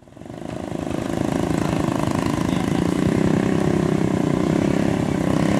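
Small motorcycle engines running, the nearest one's rapid, even firing pulses loudest. The sound fades in over the first second or so.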